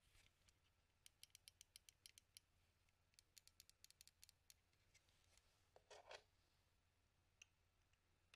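Faint handling of an opened Logitech wireless mouse's plastic shell: two runs of quick light clicks, then a brief rustle about six seconds in.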